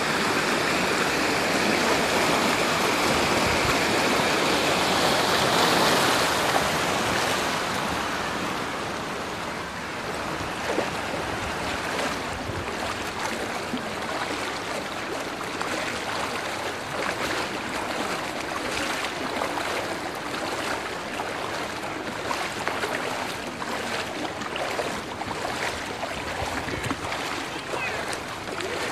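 Floodwater rushing and sloshing through a flooded street. It is louder for the first six seconds or so, then softer, with many small sharp splashes.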